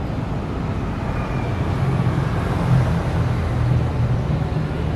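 A motor vehicle's engine running nearby with a low, steady hum. It grows louder over the first two seconds, then holds steady.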